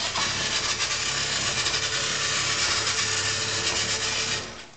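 Toy Dalek giving a steady rasping whirr with a faint low hum underneath, cutting off suddenly after about four and a half seconds.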